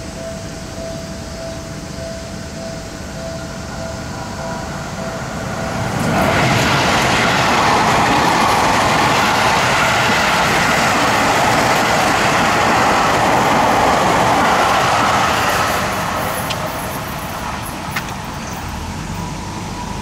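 A level-crossing warning signal sounds a steady tone. About six seconds in, an electric commuter train passes close by with a loud rush of wheel and motor noise that lasts about ten seconds, then fades away.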